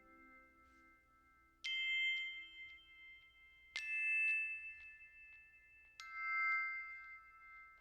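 Three struck chime or glockenspiel-like notes about two seconds apart, each ringing on and slowly fading into the next, as part of background music.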